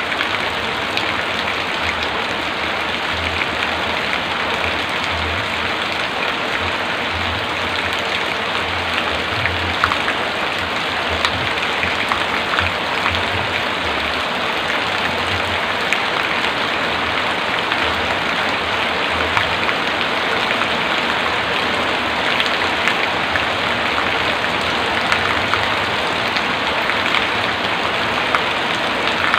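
Heavy rain falling steadily: a dense, even hiss of rain with scattered sharper drop hits.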